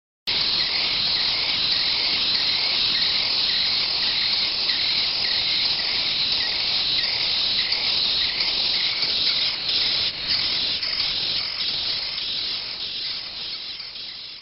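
A nest of chimney swift nestlings calling together: a loud, continuous, high-pitched chorus of rapid calls that starts abruptly and fades away near the end.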